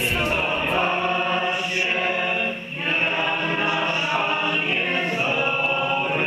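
Choral singing: several voices holding long sung notes of a hymn, dropping away briefly about two and a half seconds in.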